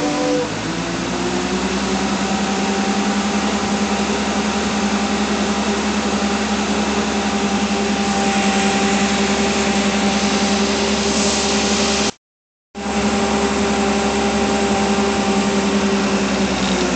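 Forklift's motor running steadily at one pitch, holding its load up on the mast.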